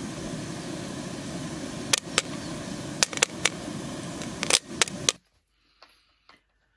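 Popcorn popping in a metal pan: a steady hiss broken by a run of sharp, irregular pops between about two and five seconds in. The sound cuts off abruptly about five seconds in.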